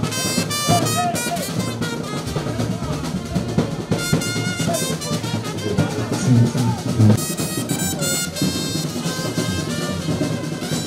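Brass band playing a slow processional, with trumpets holding notes in phrases over drums, and a few heavier drum beats about two-thirds of the way through.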